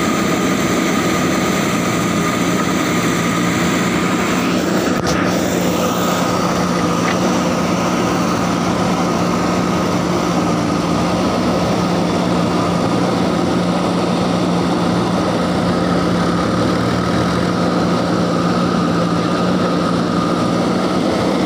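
JCB backhoe loader's diesel engine running steadily as the backhoe digs, a constant low drone with a thin steady whine above it.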